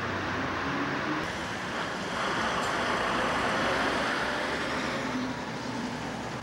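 City street traffic: a steady wash of passing cars that swells for a couple of seconds in the middle and then eases off.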